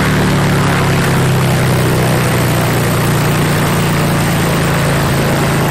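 Light aircraft's piston engine and propeller running at a steady speed with no change in pitch, during a dynamic propeller-balancing measurement run with a 30.9 g trial weight on the spinner.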